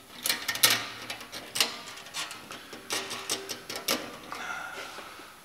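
Irregular metallic clinks and knocks as stainless exhaust pipe sections and a flex piece are handled and fitted together by hand.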